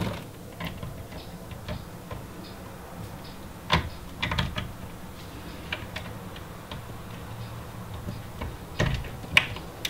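Plastic clicks and small knocks of a PCIe power cable's 8-pin connector being handled and pushed into the graphics card's power socket, with a few louder clicks about four seconds in and near the end.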